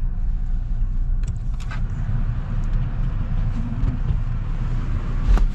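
Inside a moving car: the engine and road give a steady low rumble and the heater fan hisses. A few light clicks come early, and a sharp thump comes near the end.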